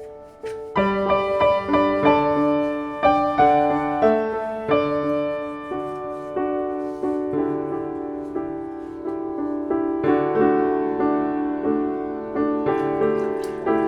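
Gentle piano background music: soft single notes at first, then fuller chords from about a second in.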